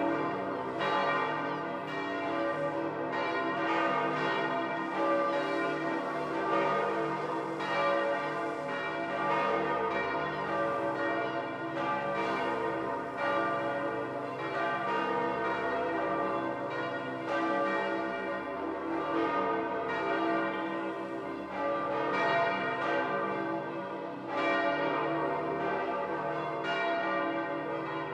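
The bells of St. Peter's Basilica ringing together in full peal, the great ringing that announces the election of a new pope. Many bells overlap, with fresh strokes about once a second over a continuous wash of ringing tones.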